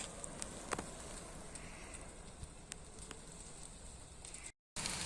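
Forest fire burning in dry vegetation: a steady rushing noise with irregular sharp cracks and pops, the loudest about three-quarters of a second in. The sound cuts out for a moment near the end.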